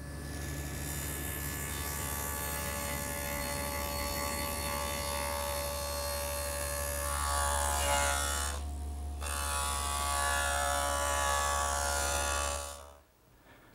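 Table saw running with a dado blade cutting grooves along pine rails, in two passes with a short break between them about 9 s in. The motor is switched off and winds down near the end.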